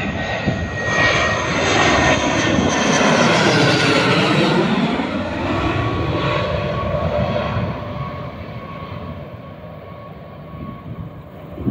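Military jet coming in to land with its gear down, passing low overhead: loud jet engine noise that swells as it approaches, sweeps as it goes over and eases off after about eight seconds as it moves away, leaving a steady turbine whine.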